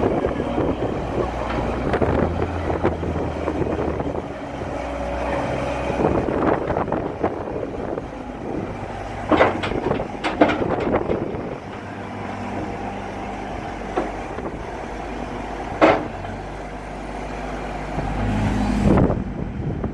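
John Deere 326D skid steer's diesel engine running, its pitch and load shifting several times. A cluster of sharp knocks comes about halfway through, single knocks follow a few seconds later, and the engine grows louder near the end.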